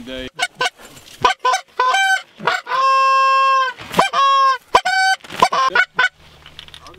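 Goose call blown by a hunter: a string of short, sharply breaking honks and clucks, with one long held note about three seconds in.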